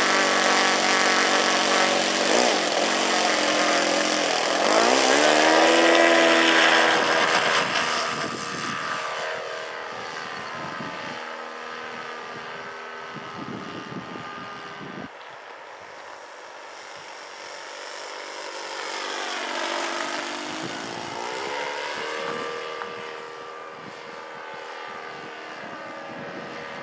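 Propeller-driven RC model airplane (a 'Tiger' sport plane) running at high throttle as it takes off and flies past. Its note swoops up and down with each pass. It is loud for the first several seconds, then grows fainter with distance, swelling again in another pass about 20 seconds in.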